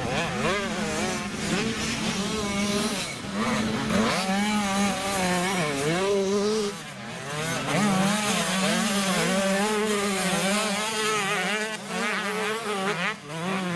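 Several 85cc two-stroke motocross bikes racing together. Their engines rev up and down over and over and overlap, with the pitch rising and falling as the riders accelerate and shift.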